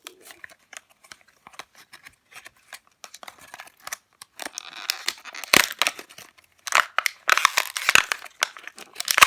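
Toy packaging being handled and opened: scattered crinkles and clicks, then denser, louder crinkling and tearing from about halfway through.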